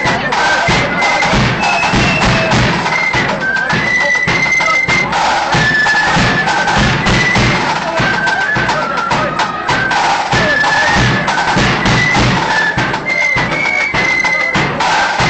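Marching flute band playing a tune: flutes carry a high melody over steady, busy snare and bass drumming.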